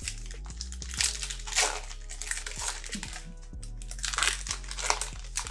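Crinkling and rustling of trading-card packs and cards being handled, in two bursts: one about a second in and another near the end.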